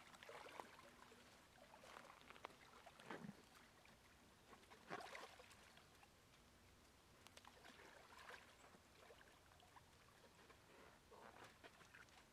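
Faint sloshing and splashing of shallow river water as people wade and move their arms and a bucket through it, coming and going every second or two.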